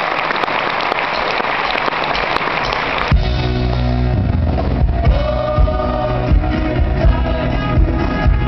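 Audience applauding, then about three seconds in a live band abruptly starts a pop song with bass and a steady beat. Sung vocal lines come in a couple of seconds later.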